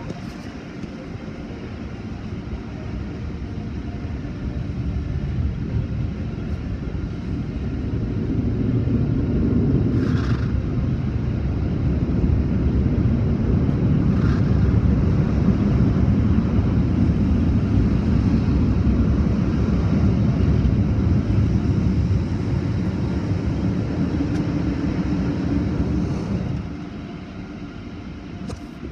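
Automatic tunnel car wash machinery working over the car, heard from inside the cabin: a dense low rumble that builds, holds loud, then drops off suddenly a few seconds before the end.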